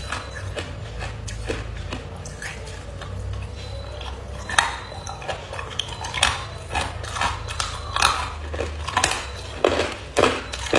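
Hard ice being bitten and crunched close to the microphone: sharp, irregular cracks, sparse at first and coming thicker from about four seconds in.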